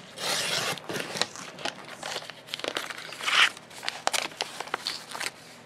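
Sliding paper trimmer's dull blade carriage pushed along its rail through a kraft paper bag: a scraping hiss at the start and a shorter, louder one about three and a half seconds in, with clicks and paper rustling between.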